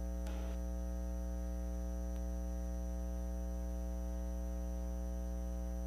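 Steady electrical mains hum with its overtones, at an unchanging level.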